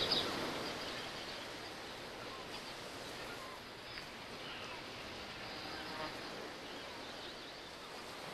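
Outdoor garden ambience: a steady background hiss with birds chirping, a burst of high chirps at the very start and fainter scattered calls after it.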